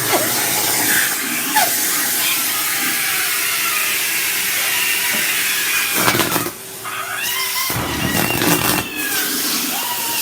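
Vacuum cleaner running with a steady hiss, with high cries or squeals gliding up and down over it. The noise drops for a moment about two-thirds of the way through.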